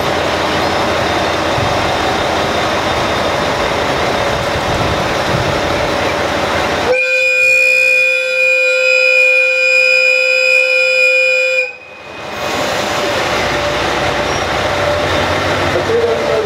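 Super Hokuto diesel express train moving past along the platform with a steady running rumble. About seven seconds in, its horn sounds one long, steady blast of nearly five seconds that cuts off abruptly, and the running noise carries on.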